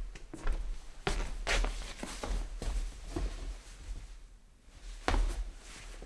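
Footsteps in slippers on a wooden floor: soft scuffing steps at an uneven pace, with a short pause about four seconds in before the walking resumes.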